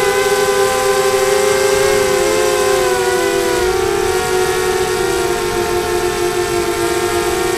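ZMR250 mini-quadcopter's four brushless motors and propellers whining in flight, as heard from its onboard camera. Several close tones waver up and down with the throttle and dip a little past the middle.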